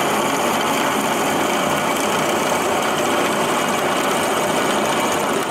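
Drill press running, its bit drilling a centre hole into the end of a metal shaft: a steady machine whir with the cutting noise of the bit in metal.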